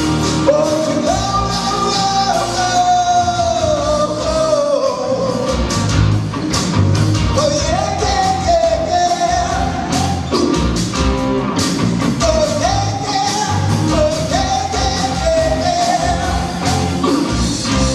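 Live rock band playing: drums keeping a steady beat under bass, electric guitars and keyboards, with a melodic lead line gliding above.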